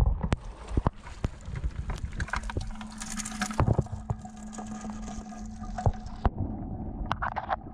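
Plastic bucket of live crayfish being handled: scattered sharp clicks and knocks of shells and claws against the plastic, over some water noise.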